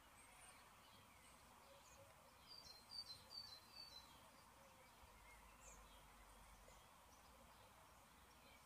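Faint birdsong over quiet outdoor hiss: a quick run of about five high chirps about two and a half seconds in, with scattered fainter calls around it.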